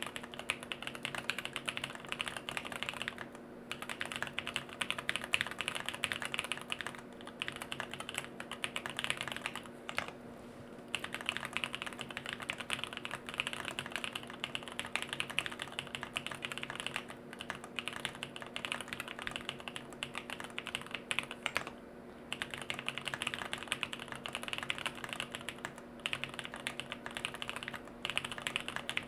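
Fast, continuous typing on a custom mechanical keyboard, a jLabs JP-02 with an FR4 plate and no foam, fitted with Bolsa Supply Corsa switches and Durock V2 stabilizers, with short pauses every few seconds. A faint steady hum lies underneath.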